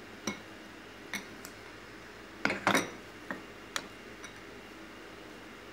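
Metal ladle clinking against a saucepan of soup: a few separate light clicks, with a louder quick cluster of knocks about two and a half seconds in.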